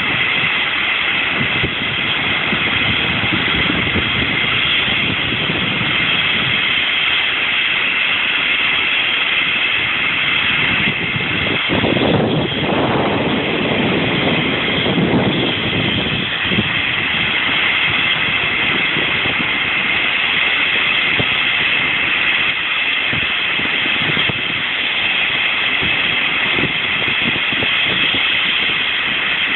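Air ambulance helicopter running on the ground with its rotor turning before take-off: a steady high turbine whine over the whooshing rush of the rotor. About halfway through, a louder surge of rushing noise lasts a few seconds.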